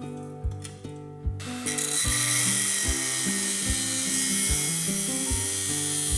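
Background music with a steady beat. About a second and a half in, a power tool starts on stainless steel sheet metal and runs on as a loud, steady, high hiss.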